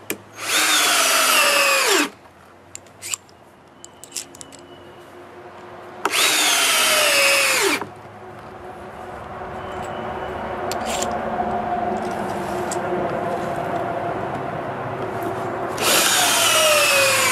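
Cordless drill driving deck screws into a wooden stair tread: three bursts of about a second and a half each, the motor's whine falling in pitch as each screw bites and seats. Between the second and third bursts a steadier background noise slowly swells.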